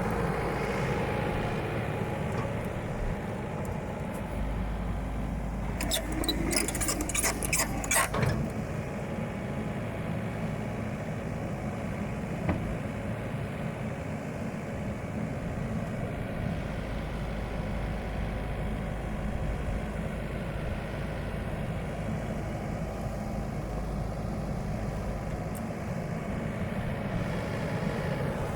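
Komatsu PC78UU hydraulic excavator's diesel engine running steadily, with a burst of metallic clattering for about two seconds, some six seconds in.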